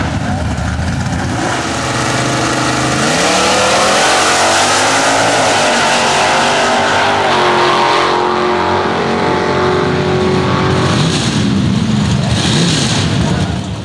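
Two nostalgia super stock drag cars' V8 engines at full throttle in a side-by-side drag race: the engine note climbs as they launch about two seconds in and holds high and loud down the strip. Near the end the pitch falls as they lift off past the finish.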